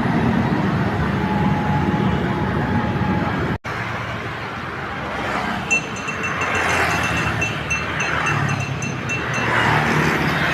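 Roadside traffic, with heavy vehicles such as buses passing close by and the sound swelling twice as they go past. The sound cuts out for an instant about a third of the way in, and through the middle a quick, repeated high-pitched beeping sounds for a few seconds.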